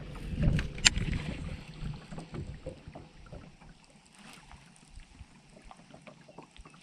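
Handling noises on a bass boat: low knocks and thumps, with a sharp click about a second in, fading to scattered faint ticks and taps.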